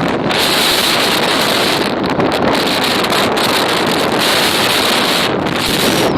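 Hurricane wind buffeting the microphone in a loud, continuous roar, gusting up and down, with heavy surf underneath.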